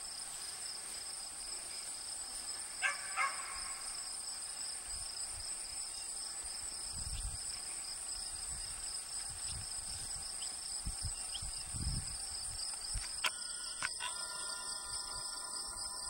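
Insects singing in the summer grass: a steady high drone at two pitches, with a few low rumbles and a couple of faint clicks.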